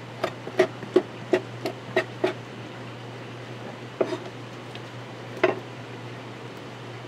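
Chef's knife striking a plastic cutting board while chopping raw squid: a quick run of about seven knocks, then single knocks about four seconds in and again about five and a half seconds in, over a steady low hum.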